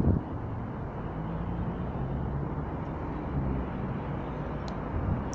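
Low, steady outdoor rumble like a distant engine, with a sharp knock right at the start and a couple of faint high ticks near the end.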